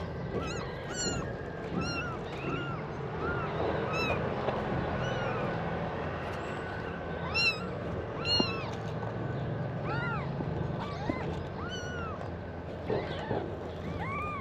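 Newborn kittens mewing over and over in short, high calls, about one every second at first, with a few louder mews in the second half.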